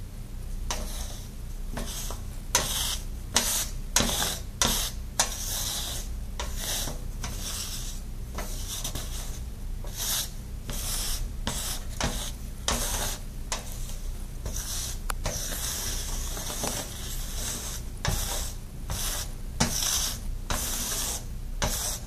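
Wooden craft stick scraping and sweeping oil-absorbent granules across a stainless steel tabletop, a rapid series of short scraping strokes about two a second, as the granules soak up a spill of used motor oil.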